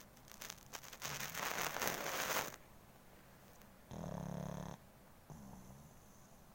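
Sleeping pug snoring: a long noisy breath, then a short buzzing snore about four seconds in and a fainter one just after it.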